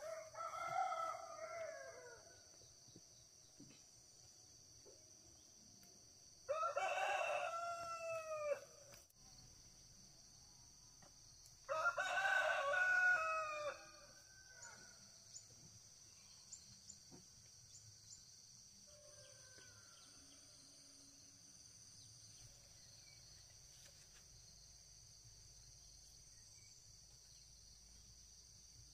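A rooster crowing three times, each crow about two seconds long and several seconds apart, over a steady high insect drone.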